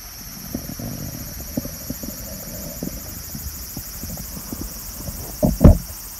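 Steady, high-pitched chorus of cicadas, with scattered soft low knocks and one louder thump near the end.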